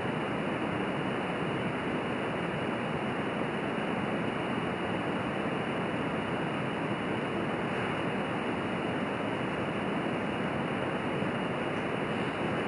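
Jetted methanol alcohol stove burning at full pressure, its jets of flame giving a steady, even rushing hiss.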